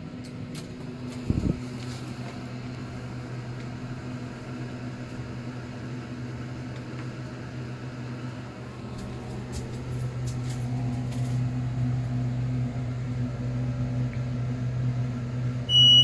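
Delaware hydraulic elevator rising: a thump about a second and a half in, then the hydraulic pump motor's steady low hum, louder in the second half. A short high beep near the end is the car's arrival signal at the floor.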